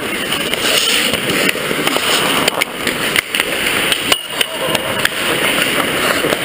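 Ice hockey play heard from inside the net: skate blades scraping the ice close by, with a few sharp clacks of sticks and puck, the strongest about four seconds in.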